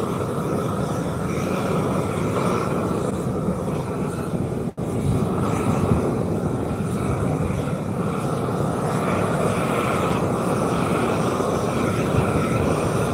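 An asphalt torch burning steadily with an even rushing noise, cut off for an instant about five seconds in.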